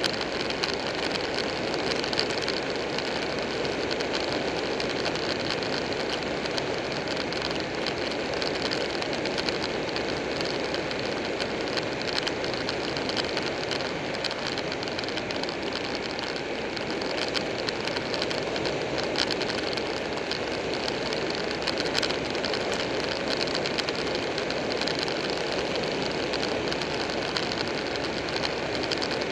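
Buell 1125R V-twin motorcycle riding at steady road speed: continuous wind rush and road noise with the engine running underneath, level and unchanging.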